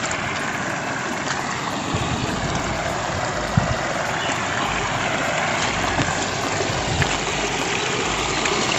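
Steady rush of water from flowing field water and falling monsoon rain, with a couple of short low knocks, the sharpest about three and a half seconds in.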